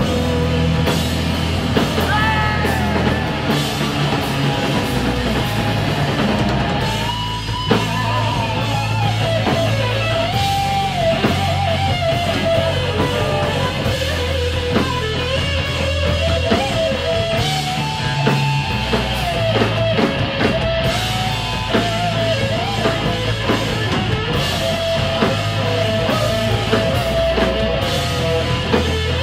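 Live rock band playing loud: an electric guitar plays a bending, sliding lead line over pounding drums, cymbals and bass guitar, with no singing.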